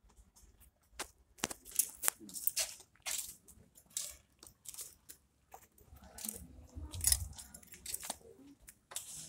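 Footsteps of several people walking, shoes clicking irregularly on a concrete walkway, several clicks a second.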